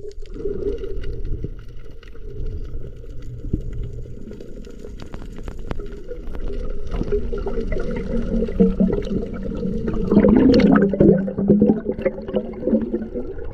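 Muffled underwater water noise, with bubbling and gurgling that grows louder near the end as the diver rises toward the surface.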